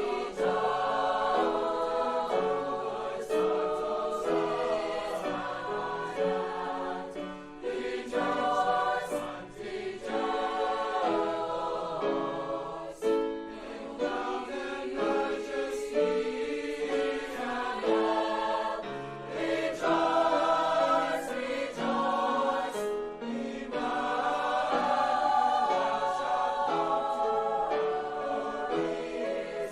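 A choir singing a Christmas piece, several voices sounding together in chords that move from note to note.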